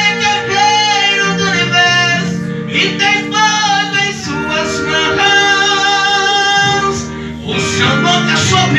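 A Portuguese gospel song sung into a microphone over guitar-led accompaniment, with long held notes sung with vibrato.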